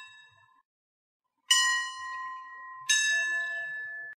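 Church bells ringing, two bells of different pitch struck alternately. The ring of an earlier stroke fades out at the start. A higher bell strikes about a second and a half in and a lower one just under three seconds in, each ringing on and slowly dying away until the sound cuts off abruptly at the very end.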